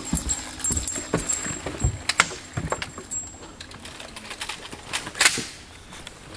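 Sharp gunshot cracks at uneven intervals, mixed with lighter metallic clicks and clatter of guns being worked during a cowboy action shooting stage. The loudest cracks come about two seconds in and just after five seconds.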